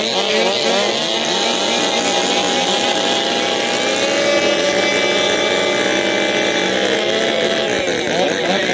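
Sidecarcross outfits racing, several motorcycle engines revving at once, their pitch rising and falling as they accelerate and back off.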